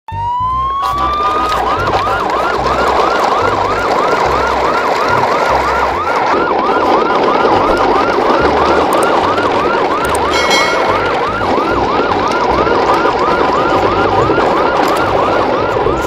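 An electronic siren: a rising wail at first, then a fast yelp that sweeps up and down about three times a second.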